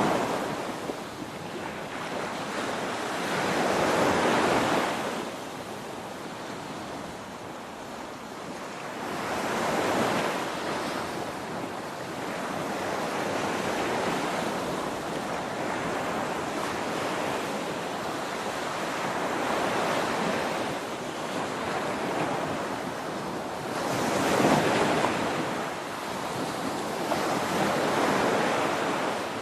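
Ocean waves breaking on a shore in continuous surf, swelling and falling back in slow surges every several seconds, with the loudest wave about two-thirds of the way through.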